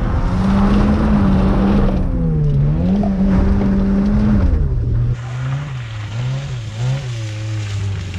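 Vehicle engine revved and held at high revs, dipping briefly once and climbing back. About five seconds in it eases off to lower, uneven revs.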